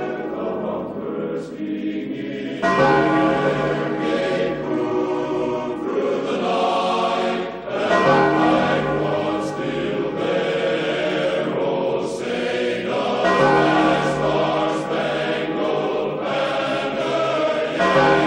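Choral music with bells: a choir singing long held chords, the harmony changing about every five seconds.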